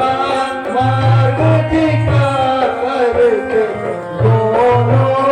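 Music: a wavering melodic line over a steady rhythmic drum accompaniment.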